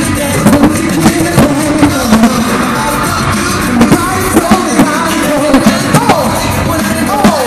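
Live pop music played loud: a singer's voice gliding over a band or backing track with hard, regular drum hits.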